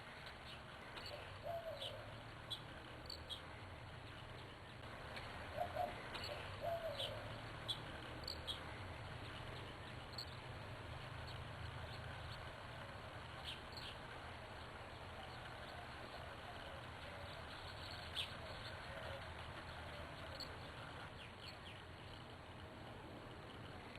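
Small birds chirping now and then with short, high notes, with a few lower calls about five to seven seconds in, over a faint steady low hum.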